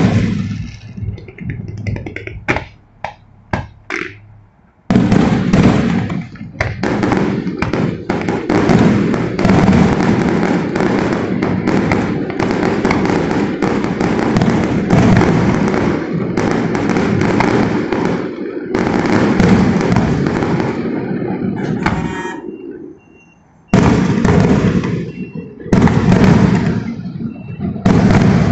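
Fireworks going off. A few separate bangs come first, then a long, dense barrage of rapid bursts and crackle. After a short lull near the end, more bursts follow.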